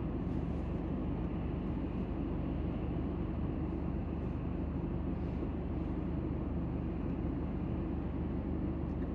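Steady low hum inside a stopped car's cabin with its engine idling, as cross traffic drives past in front.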